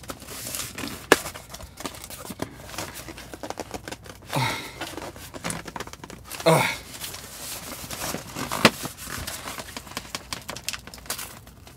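Packing tape on a cardboard box being slit with a knife and torn away, with cardboard crinkling and scraping and a few sharp clicks. A person's voice sounds briefly twice, about four and six and a half seconds in.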